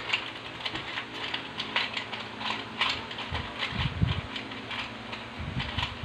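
Plastic 3x3 Rubik's cube being twisted by hand, its layers clicking and clacking in quick, irregular turns. A low rumble comes in about halfway and again near the end.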